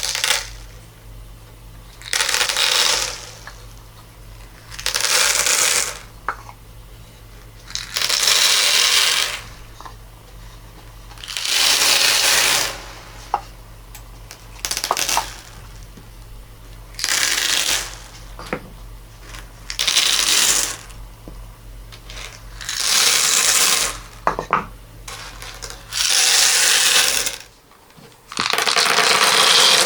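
Crystal beads pouring and rattling in short bursts, about ten pours roughly three seconds apart, with a few single clicks of beads in between. A steady low hum runs underneath.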